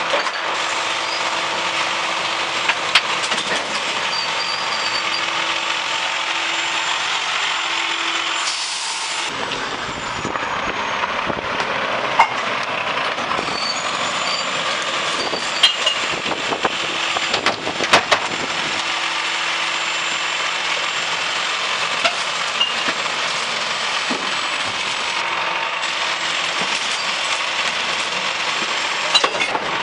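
Mack LEU garbage truck's diesel engine idling steadily while recyclables are tipped by hand from plastic bins into the McNeilus rear-loader hopper. Bottles, cans and paper clatter in, with several sharp knocks, the loudest cluster about eighteen seconds in, and a short hiss about eight seconds in.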